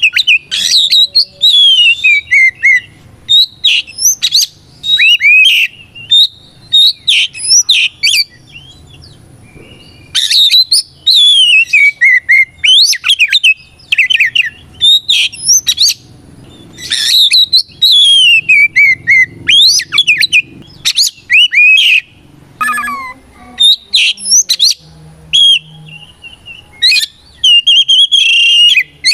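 Oriental magpie-robin (kacer) singing vigorously in loud bursts of varied whistles, falling slurred notes and rapid chirps, with brief pauses about nine and twenty-two seconds in.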